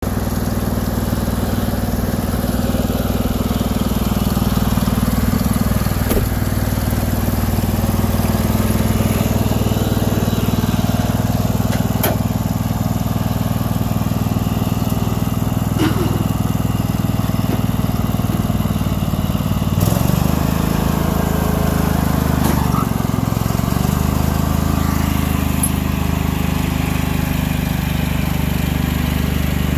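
Craftsman riding lawn tractor's engine running steadily, with a few sharp metallic clicks. About twenty seconds in its note shifts as the tractor moves off towing a loaded boat trailer.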